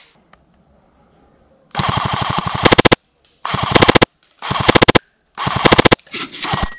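Four bursts of rapid automatic airsoft gunfire, each about half a second to a second long and loudest at its end.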